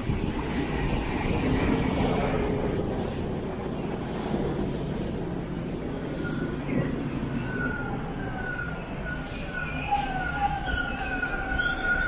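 A TTC Line 2 subway train, Bombardier T1 cars, pulling into the platform. Its heavy rumble fills the first half, with a few sharp clanks, and from about halfway in high, wavering squeals rise from the wheels and brakes as it slows to a stop.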